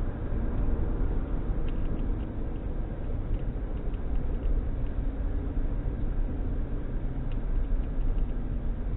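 Steady low road and engine noise heard from inside a van driving along the highway, with a few faint ticks over it.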